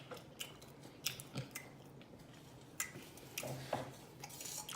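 Close-up mouth sounds of someone chewing food with open-mouth smacking: irregular short, wet clicks of the lips and tongue.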